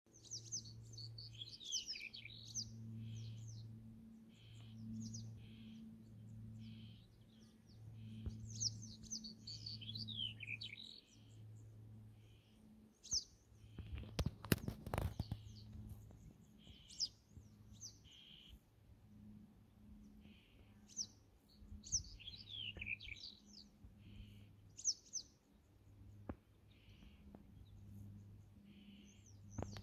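Male black-headed bunting singing: short phrases of quick, falling, scratchy notes, repeated every few seconds. Under the song a low pulsing sound repeats about once a second, and a brief cluster of knocks comes about halfway through.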